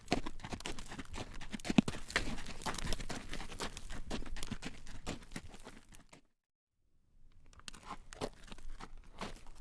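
Hooves of a carriage horse clacking on a road, a dense run of irregular knocks with one sharp, loud knock about two seconds in. Just after the middle the sound fades to silence for about a second, then fades back in.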